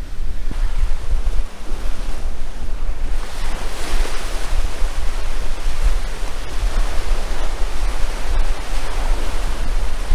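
Sea waves breaking and washing over a rocky shoreline, with wind buffeting the microphone in a steady low rumble.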